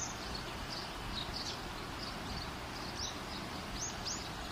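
Steady background hiss with a few faint, short rising bird chirps, about three seconds in and twice more near the end.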